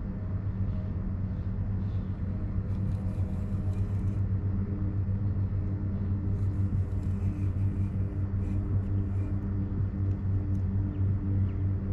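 Steady low motor hum with a rumble from a kayak under way, with faint high hissing twice.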